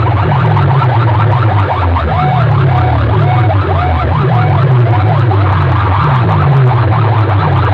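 Very loud, distorted DJ sound-system playback blasting from a rig of stacked horn loudspeakers in a sound-box competition. A pounding repeated bass beat runs under rapid warbling, siren-like sweeps.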